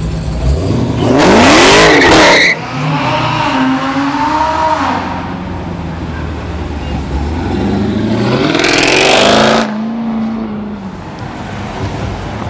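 V8 muscle cars (Dodge Challengers and a Jeep Grand Cherokee Trackhawk) pulling away one after another, each given a short hard burst of throttle. There are two loud runs of about a second and a half each, one soon after the start and one about two-thirds through, the engine note climbing and then cutting off sharply. Lower engine sound carries on between them.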